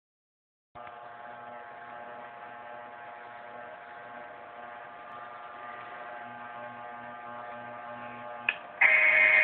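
Toy Long Island commuter train running on its track loop: a steady electric hum with a faint pulsing undertone, starting just under a second in. Near the end, after a short blip, a much louder sound with a steady pitch cuts in suddenly.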